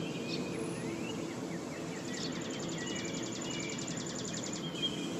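Outdoor ambience of birds chirping with short calls over a steady hiss, with a fast, even trill lasting a couple of seconds in the middle.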